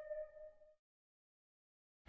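The last held note of the soundtrack music fades out in the first half second or so, followed by dead silence.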